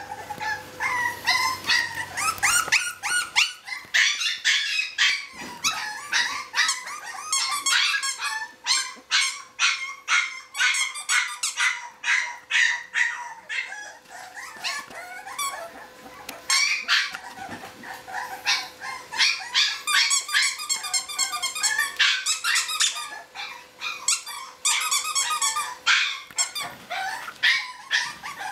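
A litter of Olde English Bulldogge puppies yipping and barking over and over in quick, high-pitched calls while they play.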